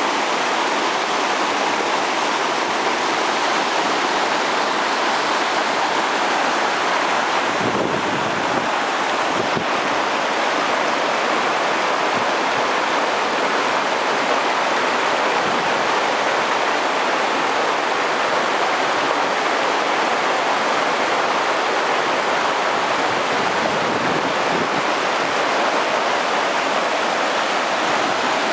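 River rapids: whitewater rushing steadily over rocks at a small falls.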